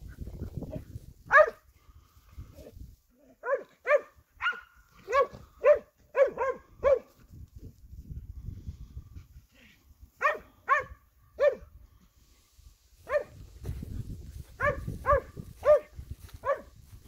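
Hunting hound (kopov) barking in short repeated barks, in clusters with pauses between: baying at a wild boar it is holding at bay.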